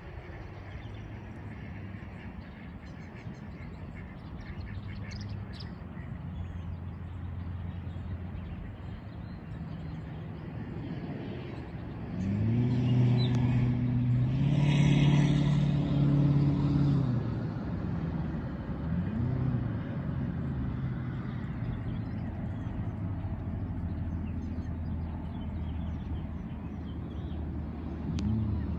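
Motor vehicle engine hum. It grows louder with rising and falling pitch from about twelve to seventeen seconds in, as a vehicle passes close by, then settles back to a steady hum. Faint bird chirps sound over it.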